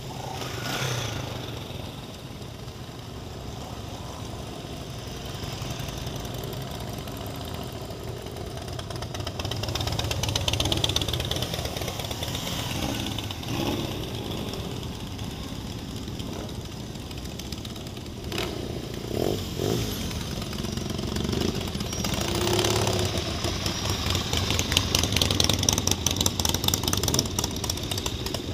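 A line of motorcycles riding slowly past one after another, their engines running at low revs, swelling louder as the nearer bikes go by about ten seconds in and over the last few seconds.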